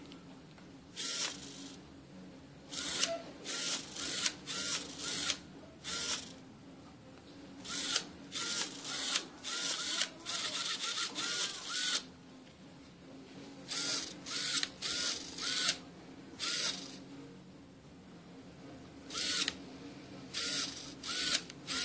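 Small servo motors of an animatronic eye mechanism whirring in quick short bursts, several in a row, then a pause, then another run, as the eyes are moved.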